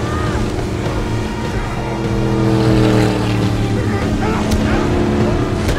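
Speedboat engines running hard at speed with rushing water, a steady drone that shifts pitch partway through, and two sharp hits in the second half.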